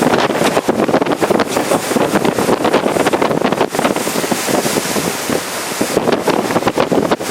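Typhoon wind gusting hard with heavy rain, the gusts buffeting the microphone in loud, uneven rushes.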